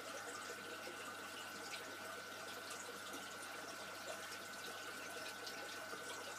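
Faint, steady trickling and bubbling of aquarium water from a filter, with a steady high-pitched whine running under it.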